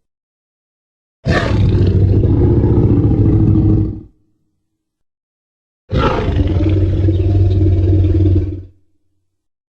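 Two Tyrannosaurus rex roar sound effects, each about three seconds long: a sudden loud onset, then a deep, rumbling, growling roar that cuts off with a short fade, with complete silence between them.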